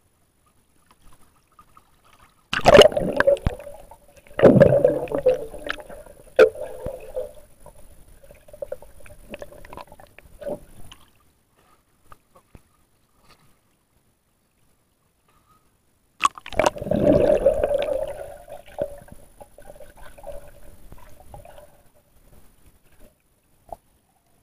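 Water splashing and sloshing right against an action camera as it is dipped in and out of the water, heard dull and close through the camera housing. The splashing comes in two bouts, the first starting about two and a half seconds in with a few sharp knocks, the second about sixteen seconds in, with a quiet stretch between.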